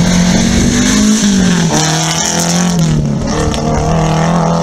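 Hatchback rally car's engine pulling hard as it passes and heads away. Its pitch rises, then drops at a gear change about a second and a half in, then holds fairly steady.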